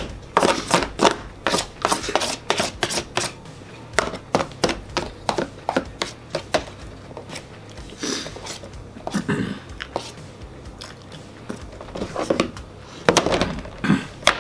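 Spoon scraping and clicking against a foil-lined baking pan as dessert is dug out, a rapid run of short sharp scrapes and taps with a few pauses.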